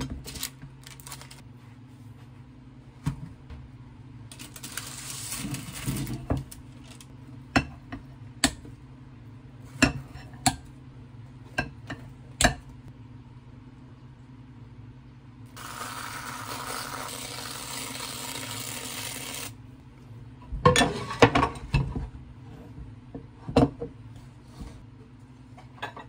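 Kitchen handling sounds: scattered clinks and knocks of dishes and utensils set down on a countertop. Past the middle there is a steady hiss lasting about four seconds, followed by a quick cluster of clatter.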